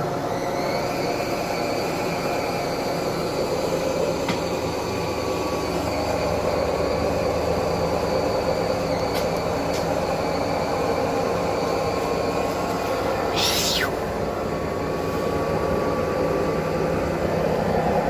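Hisense PureJet Steam 10 kg washing machine on its final spin at 800 rpm with a sudsy load: the drum motor runs with a steady whine over a rushing drone, the whine rising a little in the first second. A brief swish comes about thirteen seconds in.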